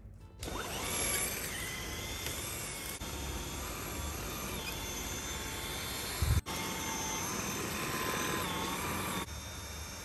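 Stick vacuum cleaner switched on, its motor spinning up with a short rising whine and then running with a steady high whine and rushing air as it is pushed over carpet. There is a low thump and a brief break about six seconds in, and the sound drops near the end.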